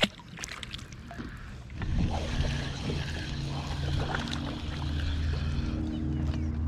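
Boat motor starts running steadily about two seconds in, with a low even hum. A single short knock comes right at the start.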